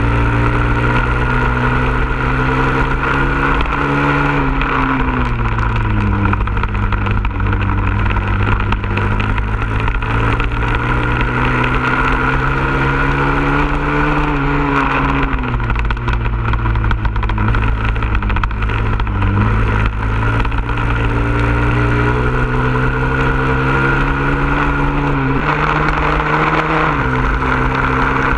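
Honda CRF100F dirt bike's single-cylinder four-stroke engine under hard riding, heard close up from the bike. Its pitch climbs steadily as it accelerates along the straights and drops sharply several times as the throttle is rolled off or a gear is changed for the turns.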